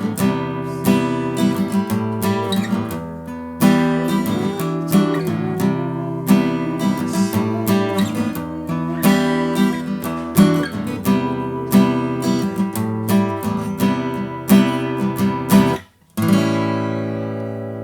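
Yamaha FG-720 acoustic guitar, fitted with a bone saddle and bone bridge pins, played in a steady rhythm of strummed chords. The playing breaks off briefly about sixteen seconds in, then a last chord is struck and left to ring out.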